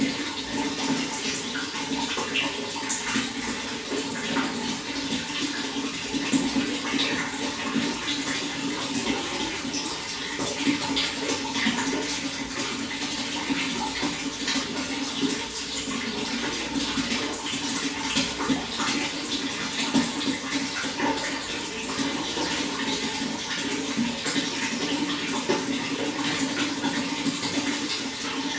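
Running water flowing steadily, a continuous splashing with many small splashes.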